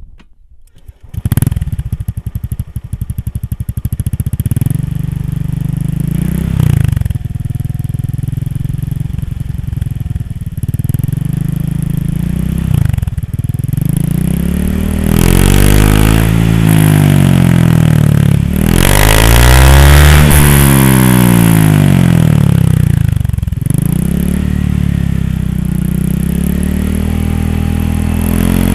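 Scooter engine breathing through a Tsukigi Proliner replica aftermarket exhaust: it starts about a second in and idles with a few short throttle blips, then is revved up and down again and again, loud, spinning the raised rear wheel.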